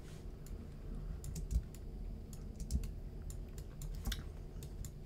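Irregular clicking and tapping of a computer keyboard and mouse as someone works at a computer, over a low steady hum.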